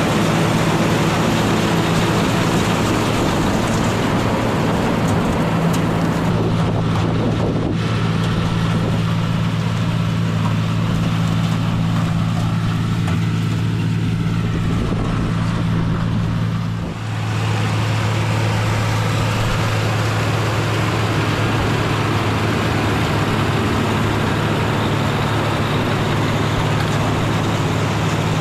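Tractor engine running steadily under load while picking corn with a mounted corn picker. The engine note shifts briefly a little past halfway, then runs on steadily.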